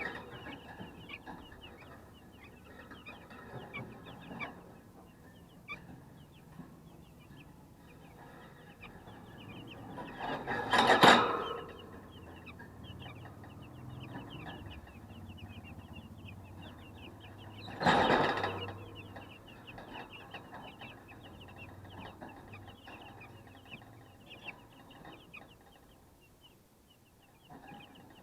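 A flock of 12-day-old broiler chicks peeping continuously, many short, high, falling cheeps overlapping. Two louder rushing noises break in, about seven seconds apart.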